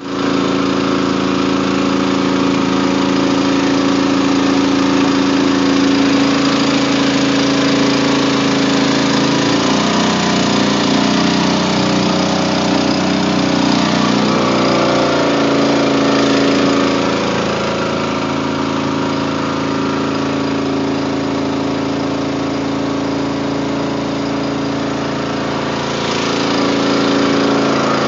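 Riverboat engine running steadily under way. Its tone wavers and shifts for several seconds about ten seconds in, then settles back to a steady run, slightly quieter.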